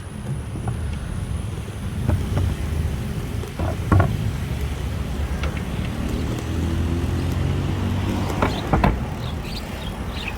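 Road traffic running past, with a motor vehicle's engine growing louder through the middle of the stretch, over a steady low rumble and a few short clicks.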